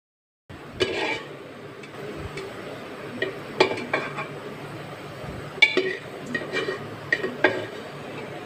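A plastic serving spoon scraping and knocking inside a metal pressure cooker as boiled meat pieces are scooped out into a steel bowl, with a string of sharp clinks against the metal. It starts about half a second in, after a moment of silence.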